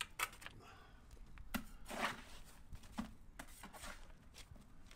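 A hand trowel scraping and tapping on a freshly laid sand-and-cement mortar bed around a manhole opening: a handful of separate short scrapes and knocks, the fullest about two seconds in.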